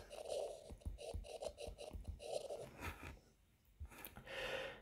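Faint tapping and scratching of a stylus writing on a tablet's glass screen, in a series of small ticks and short strokes.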